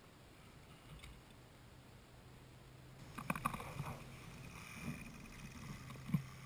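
Electric radio-controlled rock crawler climbing over rocks: a low steady hum with a higher whine from its drive, and scattered knocks and scrapes of tyres and chassis against rock, the loudest cluster about three seconds in and a sharp knock near the end.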